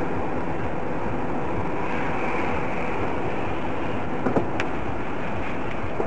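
Steady road and engine noise of a car driving, with a couple of short clicks a little past four seconds in.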